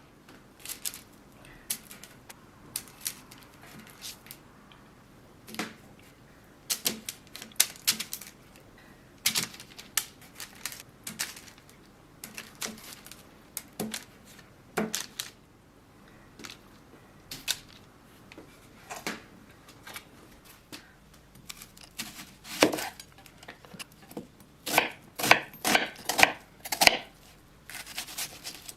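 Knife cutting food on a cutting board: scattered single cuts, then a quick run of chopping strokes near the end, about four a second.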